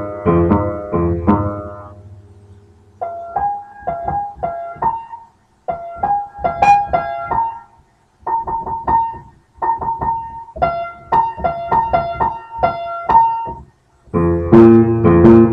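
Background piano music: quick phrases of struck notes, full chords at first, then a lighter, higher melody with short pauses, and full chords again near the end.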